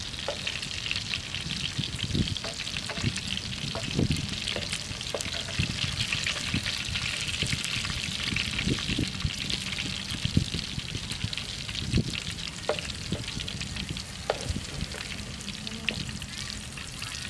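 Green peppers stuffed with meat sizzling steadily in oil in a nonstick frying pan, with a spatula now and then scraping and tapping against the pan.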